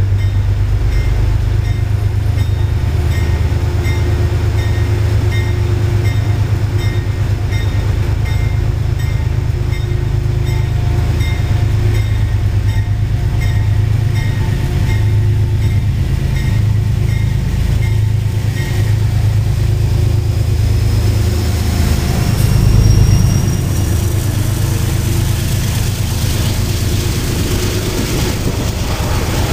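Commuter train approaching and pulling in alongside the platform: a steady low rumble throughout, swelling loudest a little past the two-thirds mark. A thin high whine rises as the train comes alongside.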